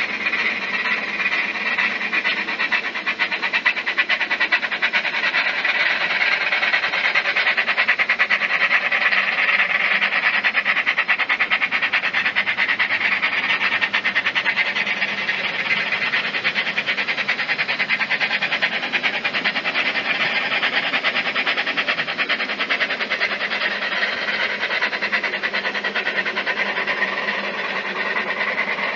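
Bachmann Double Fairlie model locomotive's DCC sound decoder playing a fast, steady steam-engine chuff through its small, tinny speaker. It grows louder toward the middle, then eases near the end.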